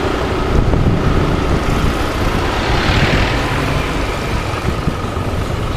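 Steady running noise of a vehicle driving along a street: engine and road noise, with a faint steady whine.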